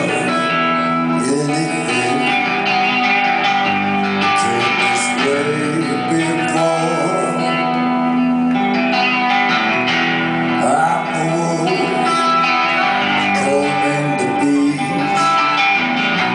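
Live band music led by guitars, plucked and strummed, in a slow rock song, heard as an audience recording.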